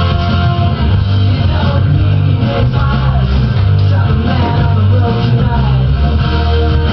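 Loud rock music with guitar and a steady bass.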